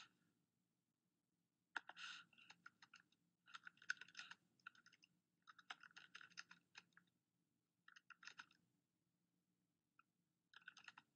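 Quiet typing on a computer keyboard, in several short runs of keystrokes with pauses between them.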